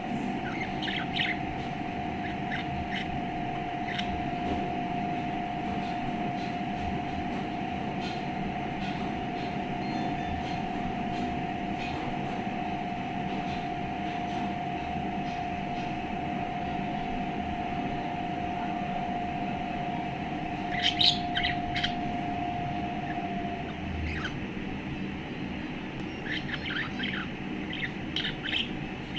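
Budgerigar chirping in short scattered bursts, loudest in a cluster a little over two-thirds through and again near the end. Under it runs a steady single-pitched hum that stops about four-fifths of the way in.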